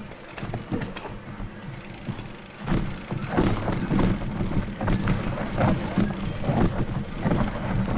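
Mountain bike rolling over a dirt trail: tyre noise and the rattle of the bike, louder from about three seconds in.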